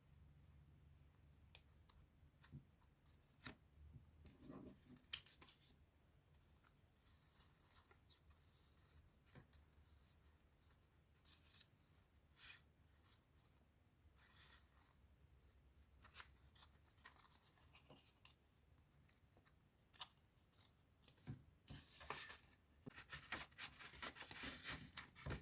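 Faint handling of scrapbooking supplies and their packaging: paper and wrapping rustle in short spells, with scattered light clicks and taps. It grows busier near the end.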